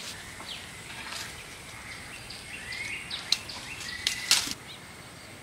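Birds chirping: short, high calls repeating over a soft outdoor hiss. Two sharp clicks about three and four seconds in, the second the loudest.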